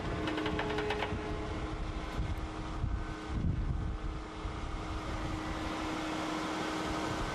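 Diesel engine of a Volvo wheeled excavator running steadily with a constant hum as the machine drives slowly up onto a low-loader trailer, with a few faint clicks in the first second.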